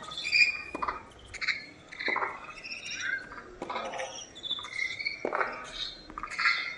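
Tennis rally on a hard court: racket strikes on the ball about every one and a half seconds, with sneakers squeaking on the court between shots.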